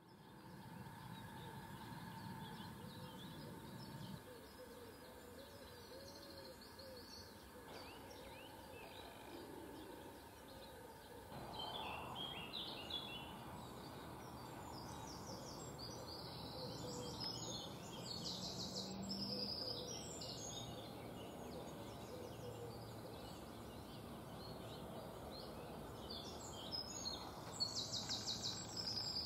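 Outdoor ambience with wild birds calling and singing: faint low calls in the first part, then short high chirping phrases near the middle and again near the end. The background noise changes abruptly a few times where separate recordings are joined.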